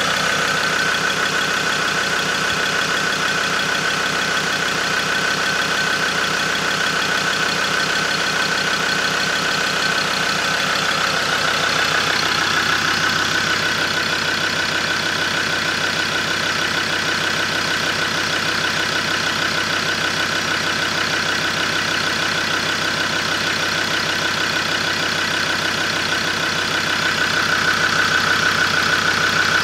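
2015 Ford Ranger's 3.2-litre five-cylinder Duratorq turbo-diesel idling steadily, heard from the open engine bay.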